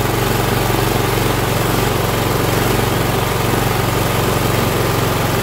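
Cub Cadet LT1045 riding mower's Kohler Courage 20 engine running steadily at an even speed on its freshly replaced carburetor, without surging.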